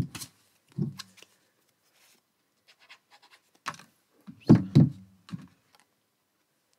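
Card panels and a glue bottle being handled on a cutting mat: scattered light taps, clicks and rustles, with a short louder low sound about four and a half seconds in.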